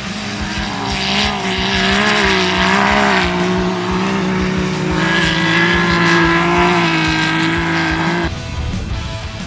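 Off-road race car engine running hard at high revs, its pitch wavering slightly and stepping down about halfway, then cutting off abruptly near the end.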